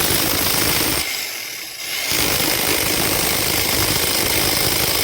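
PR 38 electric rotary hammer running under load with a dense, continuous chatter, easing off for about a second roughly a second in and then running on steadily.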